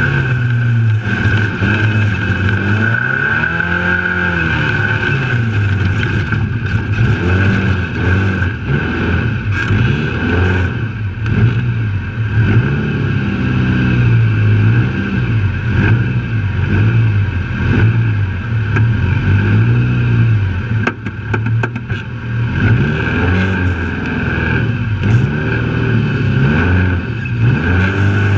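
Trophylite off-road race truck's engine under hard driving, its pitch climbing and falling again and again with throttle and shifts over dirt, with a steady high whine above it. Clusters of knocks and rattles come in about a third of the way through and again past the middle as the truck hits rough ground.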